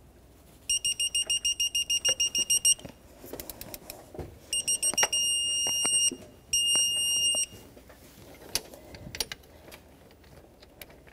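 Digital torque-angle wrench beeping as the crankshaft damper bolt is turned to 105 degrees: a fast run of short high beeps, about six a second, then a few clicks, then more short beeps and two long steady beeps that mark the target angle reached.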